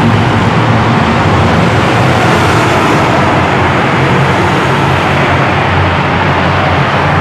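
Steady traffic noise in a road tunnel: a constant loud rush of passing cars with a low engine hum underneath.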